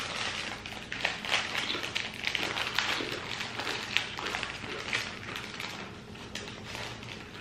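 Potato chip bags crinkling and rustling as they are handled, with chips crunched while eating; irregular crackles and snaps throughout.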